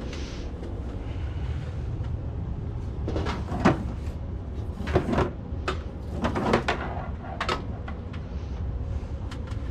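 A handful of sharp knocks and clunks, as of things being handled or bumped, over a steady low rumble.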